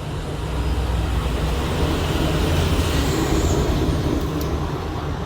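Vehicle rumble, growing louder over the first couple of seconds and easing off toward the end.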